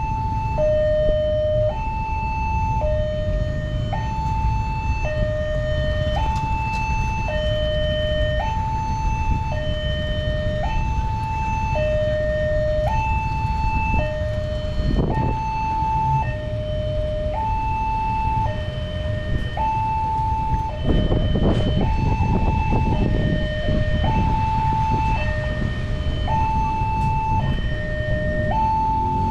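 Railway level-crossing warning alarm sounding continuously, a steady two-tone electronic siren that alternates between a low and a high tone about once a second. It signals that a train is approaching and the crossing is closed. Underneath runs a steady low rumble, which gets rougher briefly around the middle and again a little later.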